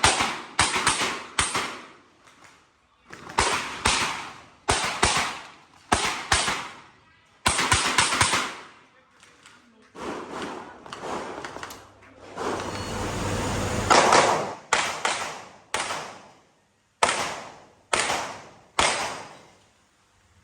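Handgun shots fired in quick pairs and short strings, each sharp crack trailing off in an echo, with pauses of a second or so between strings. About twelve seconds in, a couple of seconds of steady rushing noise sits under the shots.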